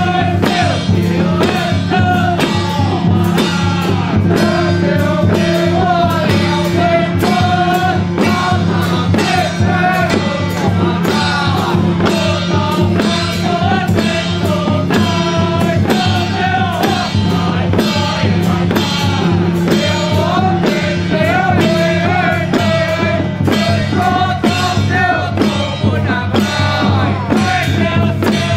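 Music: a song with a singing voice over a steady beat and sustained low notes.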